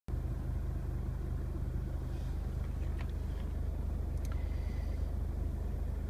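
Steady low rumble of the Mercedes-Benz Vito van idling, heard from inside the cab, with a couple of faint clicks about three and four seconds in.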